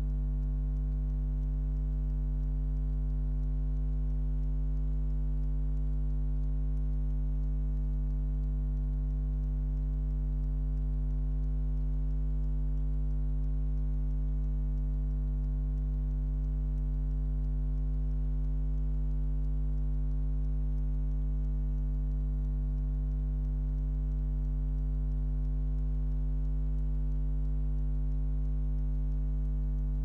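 Low, steady mains hum that does not change, with no tumbling or sloshing: the washing machine's drum is at rest in a soak pause of the hand wash cycle.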